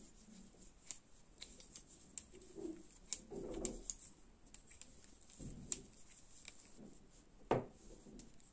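Quiet hand knitting: metal knitting needles clicking now and then as stitches of chunky cotton T-shirt yarn are worked, with soft rustling of the yarn and one louder knock near the end.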